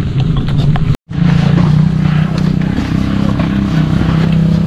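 Small motorcycle engine running steadily while riding, with a brief dropout about a second in.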